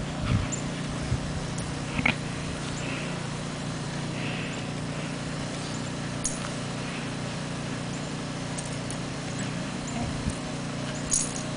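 Dogs moving about in snow: scattered soft clicks and knocks over a steady low hum.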